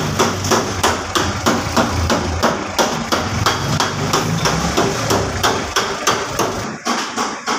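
Rapid, regular hammering, about four strikes a second, over a low rumble that drops away near the end.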